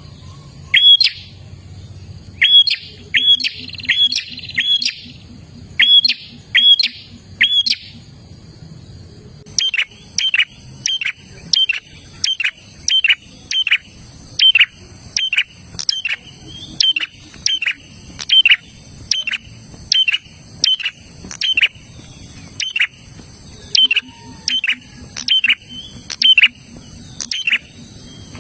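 Prinia (prenjak) calling: a string of sharp chirps, each falling quickly in pitch. They come in quick clusters at first, then after a brief pause run steadily at about two a second.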